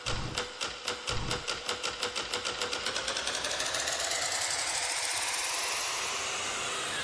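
Intro sound effect: sharp clicks that speed up from about three a second into a fast rattle, merging into a whoosh that rises in pitch.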